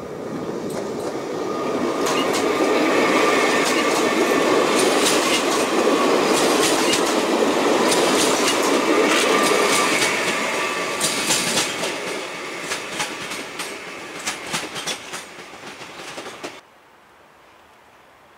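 Koleje Śląskie 22WEd (Pesa Elf) electric multiple unit running past the platform: a rolling rumble with a steady whine builds up, and the wheels click over rail joints in quick runs. It fades as the train moves off, then cuts off suddenly near the end.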